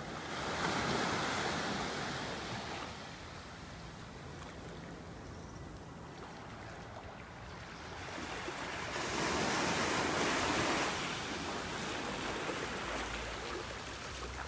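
Small waves washing up on a sandy beach and over rocks, swelling twice.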